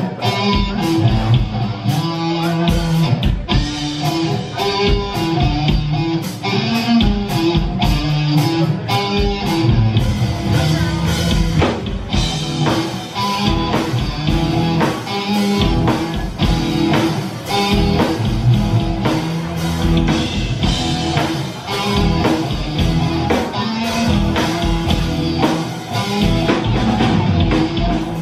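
Live rock band playing: electric guitars and bass guitar over a drum kit, loud and continuous.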